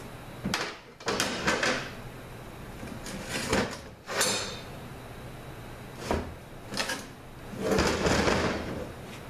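Clutch pack of a 5L40E automatic transmission (the overdrive and intermediate clutches) being worked out of the aluminium case by hand: a series of metallic clatters and scrapes. A longer, louder scrape near the end comes as the case is tipped up on the steel bench.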